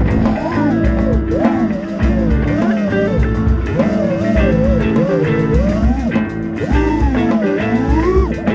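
Background music: a guitar plays a lead line of bending, sliding notes over a steady bass line and beat.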